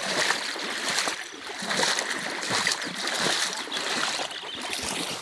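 Floodwater splashing and sloshing around the legs of someone wading through shin-deep water, swelling and dipping with the strides.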